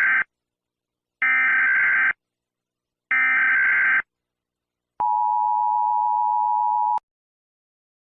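Emergency Alert System tones: the tail of one digital data burst of the SAME header, then two more bursts of about a second each, followed by the steady two-tone attention signal held for about two seconds and cutting off sharply.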